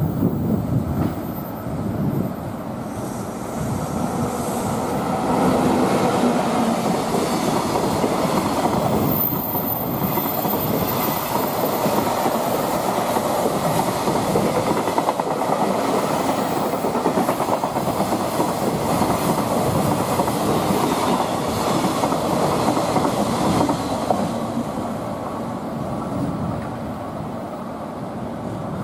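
A container freight train passing on the next track, its wheels running and clattering over the rails. The sound builds about four seconds in, holds steady, and eases off a few seconds before the end.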